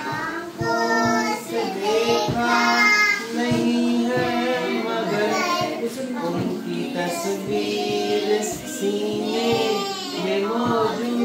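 Young girls singing a song in high children's voices, with long held, gliding notes.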